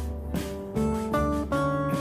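Background music: an acoustic guitar strumming chords that change every half second or so.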